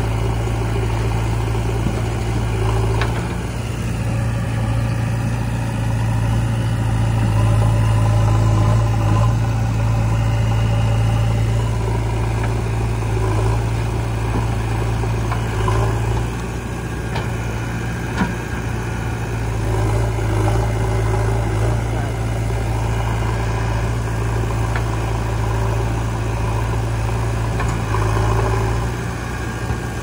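Diesel engines running steadily while a JCB 3DX backhoe loader works its arm, its engine swelling under hydraulic load for a few seconds at a time, twice. There is a single sharp knock about eighteen seconds in.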